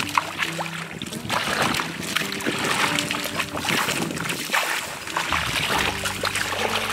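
Water splashing and sloshing in irregular bursts, as of hands working through shallow water, over background music with held low notes.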